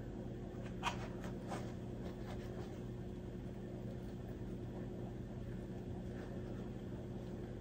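Faint handling sounds of hands working yarn around a stuffed fabric heart, with a few light clicks about a second in, over a steady low hum.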